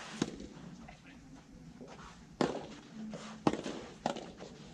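Sharp pops of a rubber soft tennis ball being hit with rackets during a rally, four in all, the loudest about two and a half and three and a half seconds in.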